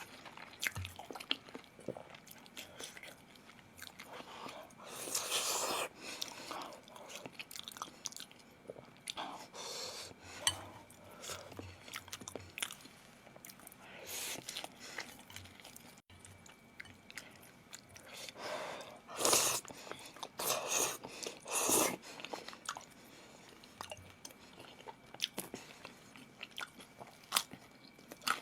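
Close-miked chewing and biting: a person eating, with many small mouth clicks and crunches and a few louder, longer stretches of noise about five seconds in and again around twenty seconds.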